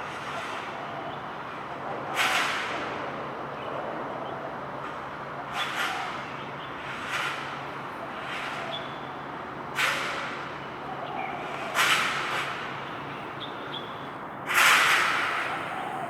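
Road traffic: a steady hum with vehicles whooshing past every couple of seconds, each rush starting sharply and fading over about a second; the loudest pass is near the end.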